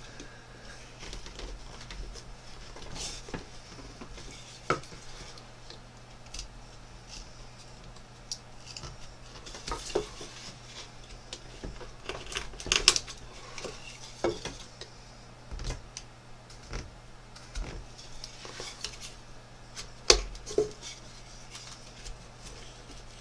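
Small carving knife slicing and paring wood by hand in short, irregular cuts and scrapes, with a few sharper clicks.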